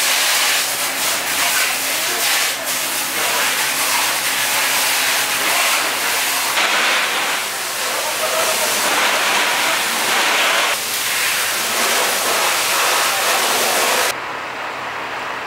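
Fire hose spraying water on burnt-out cars, a loud steady hiss and rush of water. The sound changes abruptly about six and a half seconds in, and turns quieter and duller near the end.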